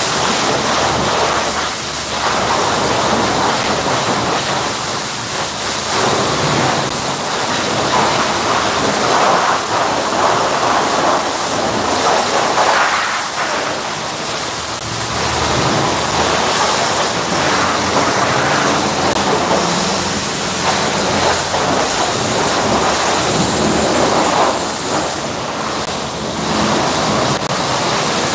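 High-pressure car wash lance spraying a car: a steady hiss of water jetting onto the bodywork, swelling and easing as the jet sweeps over the panels.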